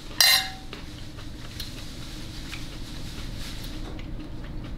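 A metal fork clinks down onto a plate once with a brief ring, then faint crunching of someone chewing salad close to the microphone over a low steady hum.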